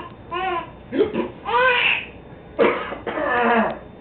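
A baby laughing and squealing in several short bursts, some high and pitched, some breathy.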